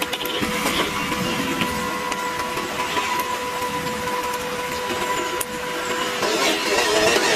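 Small brushed electric motor and geared drivetrain of a WPL C74 Suzuki Jimny RC crawler whining steadily as it drives through mud and water, with scattered clicks. The steady whine stops about six seconds in and rougher scrabbling noise follows.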